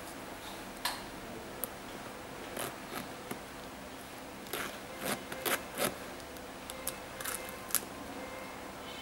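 Handling noise of fingers rubbing and plucking at a black suede Adidas Yeezy 750 Boost's laces and upper: a scatter of short rustles, light scrapes and clicks, densest about five to six seconds in, over a steady faint hiss.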